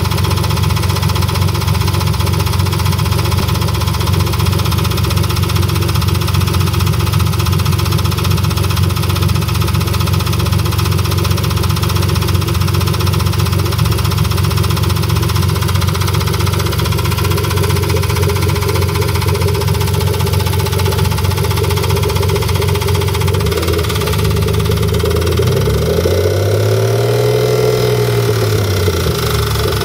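BMW S52 straight-six engine idling with a knocking/ticking. New lifters have not cured it, and it stays when each spark plug is disconnected, so the owner guesses it is not a rod problem. Near the end it is revved once, its pitch rising and falling back to idle over about three seconds.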